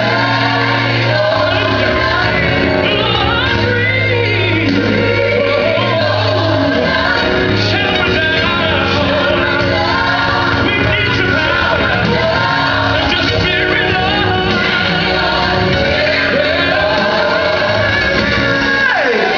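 Gospel music: voices singing a worship song, with sliding, ornamented sung lines over instrumental accompaniment that holds sustained bass notes.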